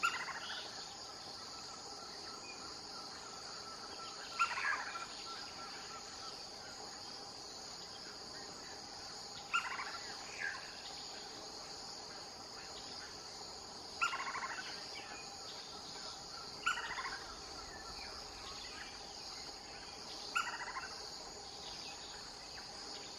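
Steady high-pitched insect chorus, with about six short, sharp notes from a lineated woodpecker spaced four to five seconds apart.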